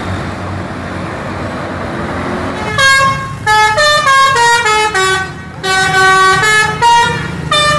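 Coach bus running past with engine and road noise. About three seconds in, its multi-tone musical 'telolet' horn starts, playing a tune of stepped notes that go up and down in several phrases.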